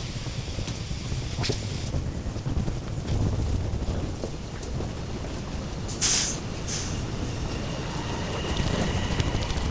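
Train noise: a steady low rumble with a short air hiss about six seconds in and a faint steady high whine near the end.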